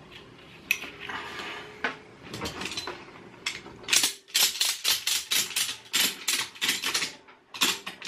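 Strap webbing rustling with a couple of single metal clicks as the ratchet strap's hook is set. From about halfway, a fast run of sharp ratchet clicks, several a second, as the strap is cranked tight; it pauses briefly near the end, then starts again.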